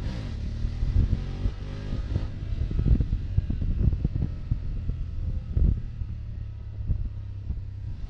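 Motorcycle engine running under way, its pitch rising over the first two seconds as it accelerates, then holding steady.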